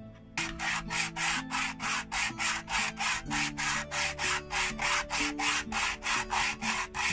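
A small wooden model part sanded by hand on a sheet of sandpaper, rubbed back and forth in a quick, even rhythm of about four scraping strokes a second, starting about half a second in.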